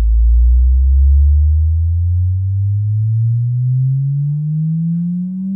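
JBL L19 speakers playing a signal generator's sine-wave sweep: one pure tone rising slowly and steadily from deep bass upward through the low range, a test of the repaired woofer for buzz.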